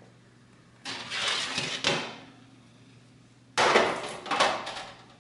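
Metal baking sheet scraping as it slides out of the oven along the rack, then clattering several times about three and a half seconds in as it is set down on the stovetop's metal burner grates.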